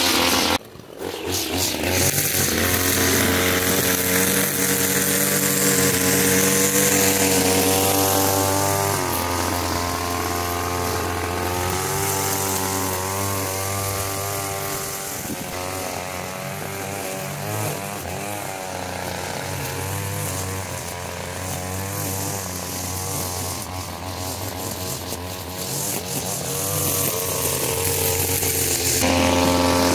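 Two-stroke petrol strimmer running and cutting, its engine note holding steady and then rising and falling with the throttle. The sound briefly drops out about a second in.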